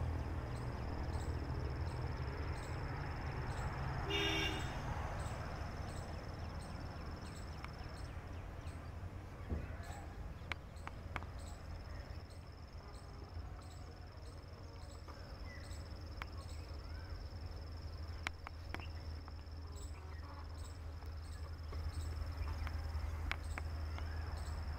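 Insects chirping in a steady high pulse, about two chirps a second, over a steady low rumble. A brief pitched call about four seconds in, and a few faint clicks.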